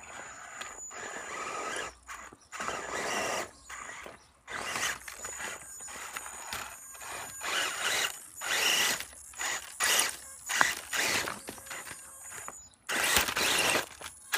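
Electric drivetrain of an Axial Wraith 1/10-scale RC rock crawler working in stop-start bursts as it climbs a boulder: motor and gear whine with clicking, and tyres scraping on rock.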